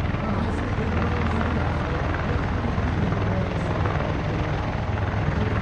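Bell Boeing CV-22 Osprey tiltrotor running on the ground with its rotors turning in helicopter mode: a steady, deep rotor and turbine din.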